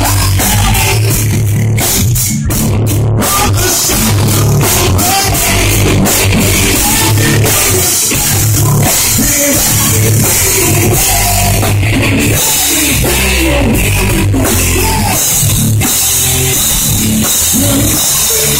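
Rock band playing live and loud: electric bass, drum kit and electric guitar together in a heavy, driving rhythm.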